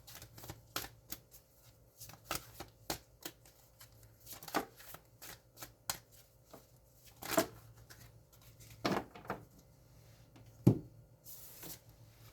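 Tarot cards being handled and shuffled: a run of short, irregular flicks and taps, with the sharpest snap about ten and a half seconds in and a brief slide just after it.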